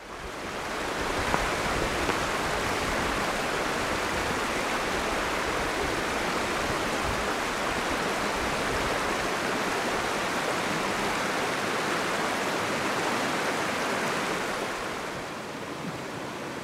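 Shallow mountain river running over rocks: a steady rush of flowing water that fades in at the start and softens a little near the end.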